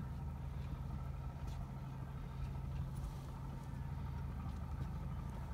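Steady low mechanical hum, like an engine or motor running, with a few faint ticks.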